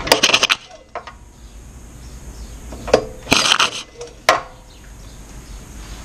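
Honda GX200 engine's recoil pull-starter pulled twice, about three seconds apart, each pull a short burst of rapid metallic clicking, with a few single knocks between. The engine is cranked by hand with its cylinder full of water-contaminated oil and does not fire.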